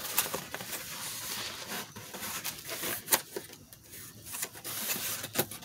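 Cardboard shipping box being opened and handled by hand: flaps rustling and scraping, with a few sharp crackles and knocks, the loudest a little past the middle.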